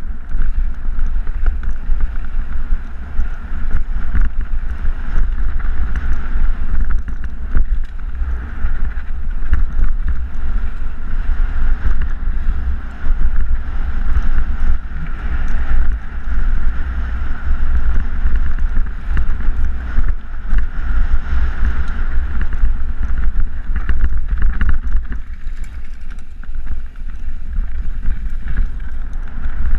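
Heavy wind buffeting on an action camera's microphone as a mountain bike descends loose rocky singletrack at speed, with tyres rolling over gravel and frequent short rattles and knocks from the bike over rocks.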